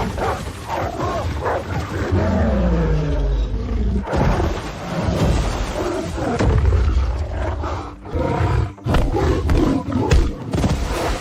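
Big-cat roars and snarls, one after another, with a long roar falling in pitch about two seconds in.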